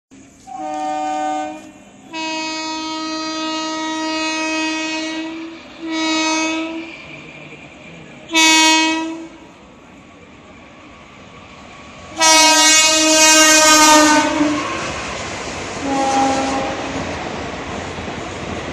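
Locomotive horn of an oncoming Indian Railways express train, sounded in about six blasts: a short toot, a long blast of about three seconds, two short toots, another long blast around twelve seconds in, and a fainter short one near the end. Between and after the blasts the rumble and rail clatter of the approaching train grow.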